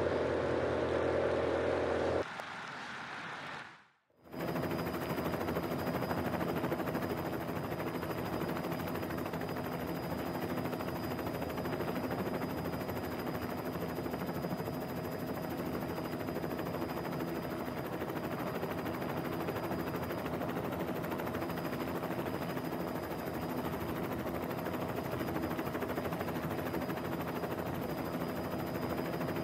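Helicopter rotor and turbine noise, steady with a rapid chop and a thin high whine. It sets in after a different, louder sound cuts off about two seconds in and the track briefly drops out.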